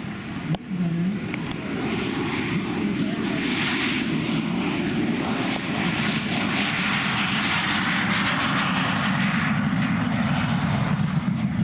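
Aero L-39 Albatros jet's single turbofan engine at takeoff power during its takeoff run on a wet runway: a steady rushing jet noise that swells about a second and a half in, with a thin high turbine whine through the middle.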